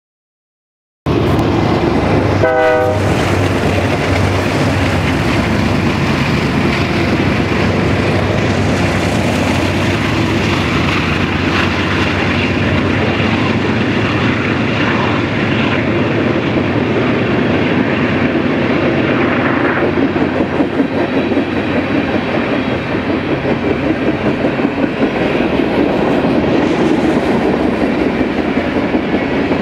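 BNSF freight train passing. After a second of silence there is a short locomotive horn blast about two seconds in, then the steady rumble and clickety-clack of freight cars rolling by.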